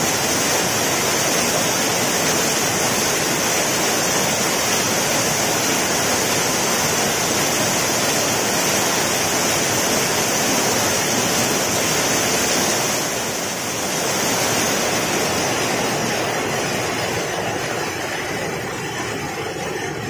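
Waterfall pouring into a pool: a steady, noisy rush of strongly falling water and spray, easing slightly in the last few seconds.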